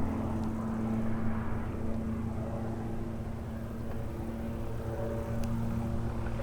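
Light aircraft's piston engine and propeller running steadily, a constant hum with a few higher overtones coming in about two and a half seconds in.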